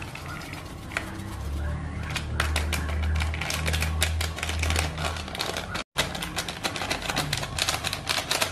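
Plastic Chocolatos sachet crinkling and crackling rapidly as it is squeezed and shaken out over a plastic bowl. A low hum comes in after about a second and fades by about five seconds.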